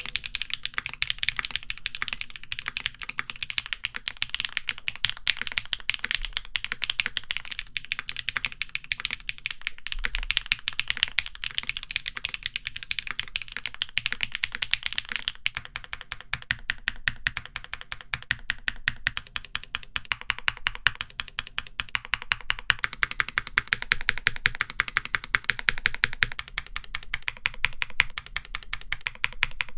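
Graystudio Macross 65 mechanical keyboard with an aluminum plate being typed on continuously, in a sound test of its foamed and foamless builds: a fast, steady run of keystroke clacks. The character of the clacks changes about halfway through.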